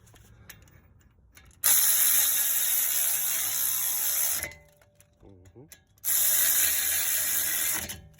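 Cordless power tool running in two steady bursts, about three seconds and then about two seconds, spinning in bolts during brake reassembly.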